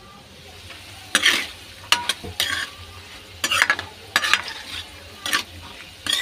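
A metal spoon stirring chickpeas in a metal pan as they fry with spices, giving about seven short scraping strokes spaced half a second to a second apart.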